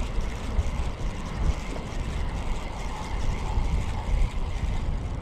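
Wind buffeting the microphone in strong gusts: a rough, uneven rumble that rises and falls.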